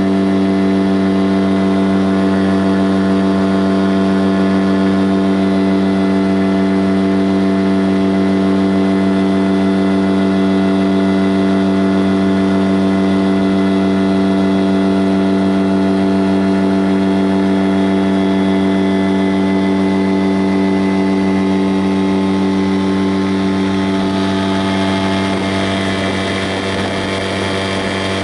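A motor running steadily at one unchanging pitch, a constant droning hum.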